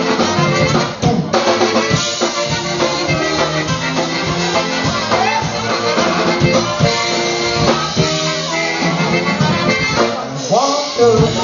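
Live polka band playing an instrumental passage, trumpet over a steady drum-kit beat.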